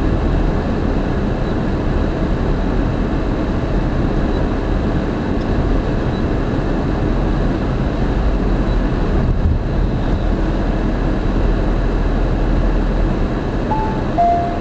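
Steady road and engine noise inside a moving car's cabin. Near the end a short two-note falling chime sounds from the car navigation unit.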